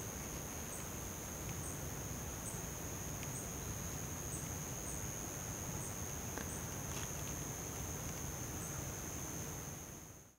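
Insects singing: a steady high-pitched whine with a short high chirp repeating a little more than once a second, over a low steady rumble, fading out near the end.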